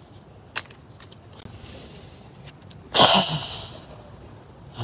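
A person sniffing a freshly opened deck of playing cards to take in the new deck smell: one loud sniff about three seconds in, after a faint click from handling the card box.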